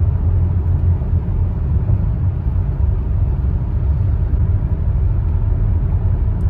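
Steady low road and engine rumble inside the cabin of a Renault Samsung QM6 LPG SUV cruising at about 80 km/h on winter tyres.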